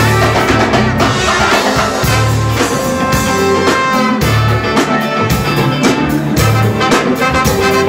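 Live funk band playing: a horn section of saxophone, trumpet and trombone over drum kit, congas, electric bass and guitar, with a steady beat.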